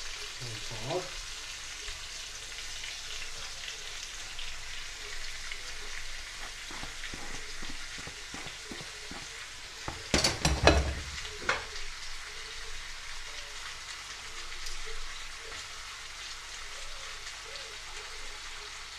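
Chunks of pork, beef and chicken sizzling in oil in a frying pan, a steady high hiss. About ten seconds in there is a loud brief clatter and rustle as chopped onion is tipped into the pan on top of the meat.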